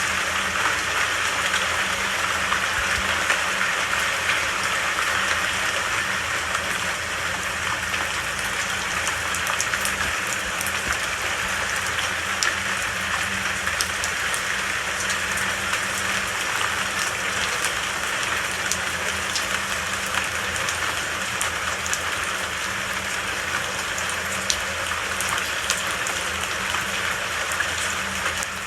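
Steady, even rain, with scattered sharp drop ticks over the hiss.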